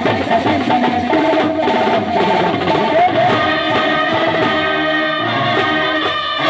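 Loud, continuous brass band music: a melody line over drums, playing without a break.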